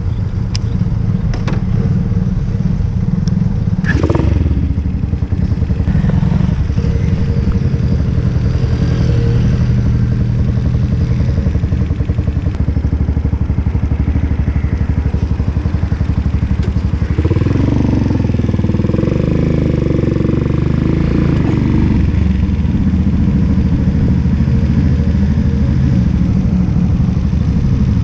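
Keeway K-Light 202's single-cylinder engine running with a steady low firing beat. About two-thirds of the way through it revs up and down as the bike pulls away, then settles into a steady run at low speed.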